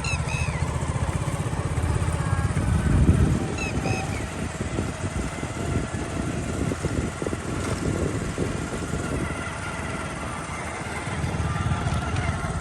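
An engine running steadily, loudest a few seconds in and easing off before picking up again near the end, with a few short bird chirps over it.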